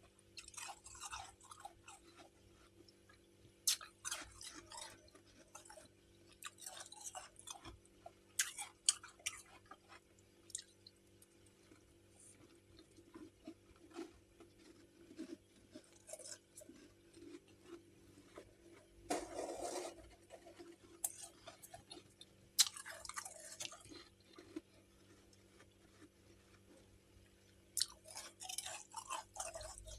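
Chunks of freezer frost being bitten and chewed close to the microphone: crisp crunching in irregular bursts every few seconds, with short pauses between mouthfuls, over a faint steady hum.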